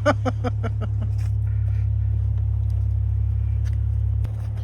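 Jeep Wagoneer idling with a steady low hum, which eases slightly about four seconds in. Scattered light knocks and taps of snow and ice being cleared sound over it, and a short cry comes at the very start.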